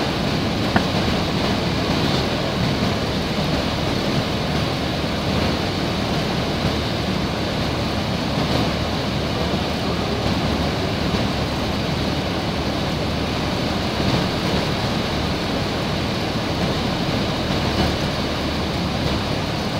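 Cabin noise inside a Piper PA-28 light aircraft: a steady drone of the piston engine and rushing air during the approach to land.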